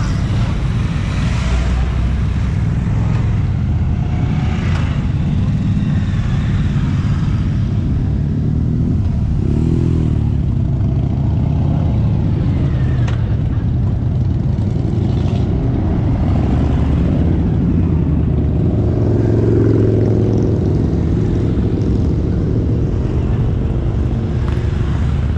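Motorcycles riding past one after another, their engines running steadily, with a louder swell about three-quarters of the way through as one passes close.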